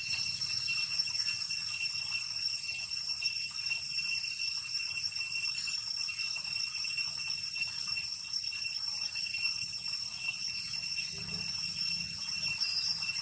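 Steady, unbroken shrill ringing of an insect chorus, several high tones holding level throughout, over a faint low rumble.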